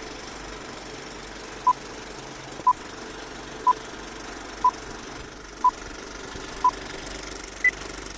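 Old-film countdown leader sound effect: a steady projector-like whirring rattle with a short beep once a second, six beeps in a row, then one higher-pitched beep near the end.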